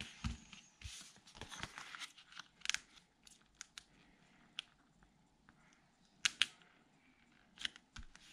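Cardstock and photo mats being handled on a tabletop layout: soft paper rustling and sliding with scattered sharp taps and clicks, the sharpest two close together about six seconds in. Near the end, hands press the mounted photo flat onto the page.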